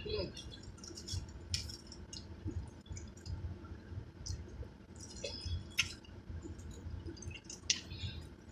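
Eating sounds: scattered wet mouth smacks and clicks of chewing, over a steady low rumble.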